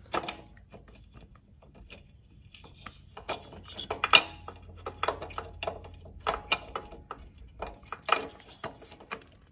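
Irregular small metal clicks and clinks as a finned regulator rectifier is set against a steel mounting bracket and its bolt is threaded in by hand; the sharpest knock comes about four seconds in.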